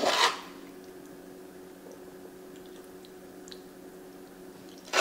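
Soft, squishy scraping of caramelized onions being laid on top of a grilled pork chop, once at the start and again near the end, with a few faint utensil clicks between over a steady low hum.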